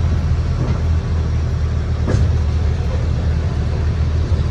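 Open-air resort shuttle road train in motion, heard from one of its open carriages: a steady low rumble of motor and wheels with road noise, and a brief knock about two seconds in.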